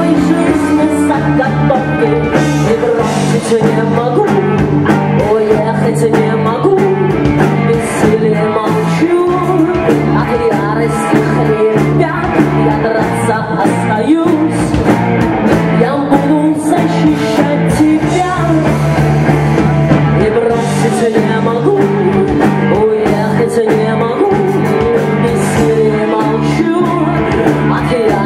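Live rock band: a woman singing lead over electric guitars and drums, with drum and cymbal hits keeping a steady beat.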